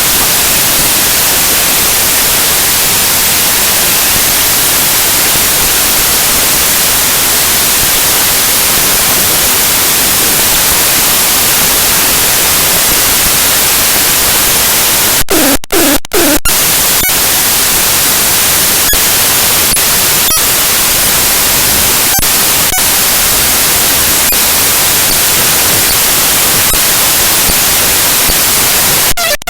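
Raw bytes of a flag image file played straight as audio by the Binary Waterfall program: loud, dense static like white noise. About halfway it breaks off briefly with a few short buzzy tones, then the hiss resumes with scattered faint clicks.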